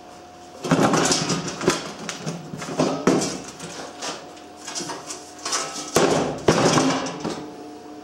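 A welded sheet-steel mower seat pan scraping and knocking against a wooden workbench top as it is handled, turned over and set down. The sound comes in several noisy bursts with sharp clacks.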